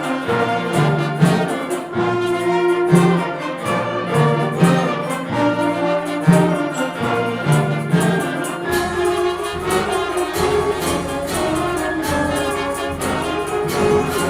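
Concert band playing live, with the brass to the fore. A pulsing bass line repeats about every second, then gives way to a held low note about two-thirds of the way through.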